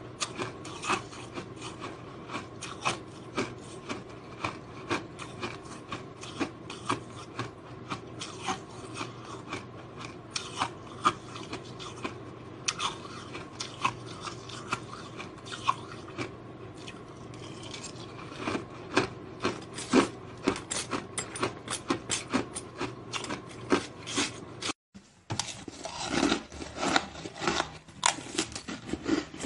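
Powdery frozen ice crunching as it is chewed close to the microphone: a run of crisp crackles, one or two a second at first and coming faster in the last third, with a moment of silence about 25 seconds in.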